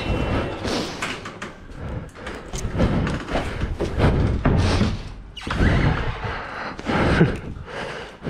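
Irregular thumps and knocks of someone climbing down a metal crane ladder and then walking on concrete, with hands and feet striking the metal and steps.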